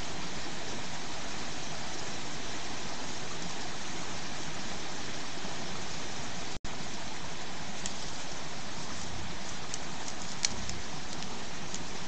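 Steady rushing hiss of a small woodland stream flowing, picked up by a trail camera's microphone. It drops out for an instant about six and a half seconds in, and a few faint ticks follow later.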